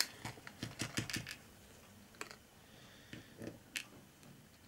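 Light clicks and taps of small plastic model parts and a tiny screw being handled and fitted together on a cutting mat: a quick run of clicks in the first second or so, then a few scattered ones.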